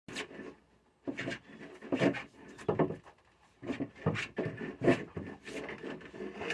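Irregular scraping and rubbing strokes with some knocks, about two a second with short pauses, as conduit and wire are handled and dragged.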